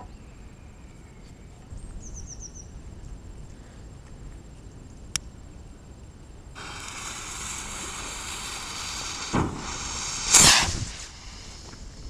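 Firework rocket lit: its fuse and motor hiss steadily for about four seconds, then a pop and a louder bang about a second apart as it goes off.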